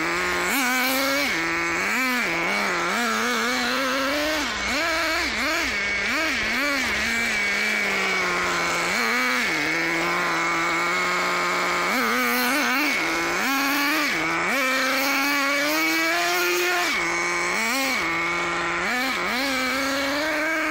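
Thunder Tiger Tomahawk BX 1/8-scale nitro buggy's small glow engine revving up and down in quick bursts as it is driven, settling to a steady idle a few times between the revs.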